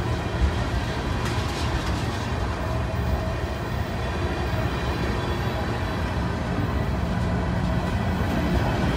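Freight cars, mostly tank cars, rolling slowly past close by: a steady rumble of steel wheels on the rails.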